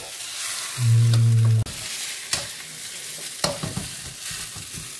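Metal spatula scraping and clicking against a wok as fried rice is stir-fried, over a steady sizzle of frying. A loud low steady hum sounds for just under a second about a second in and stops abruptly.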